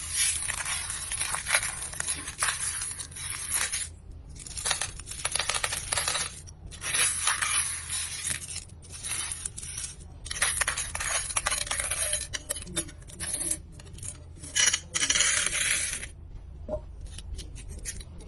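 Metal coins pouring and clinking in repeated runs of one to four seconds with short pauses between, thinning to scattered clinks near the end.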